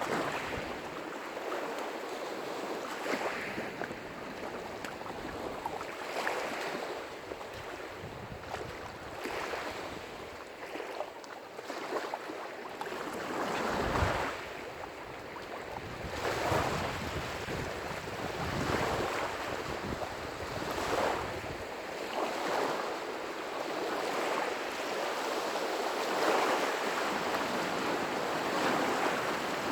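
Lake waves breaking on the shore of Lough Neagh, surging every two or three seconds, with wind on the microphone. A low thump about halfway through is the loudest moment.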